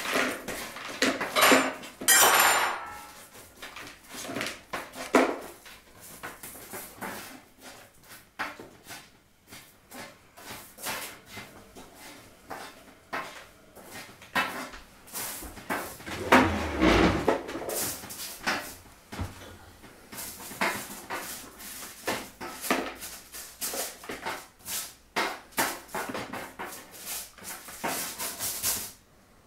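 A wooden spatula scraping and knocking crinkle-cut fries off a foil-lined baking tray into a plastic bowl, a run of short scrapes and clatters. There is one louder thump about halfway through.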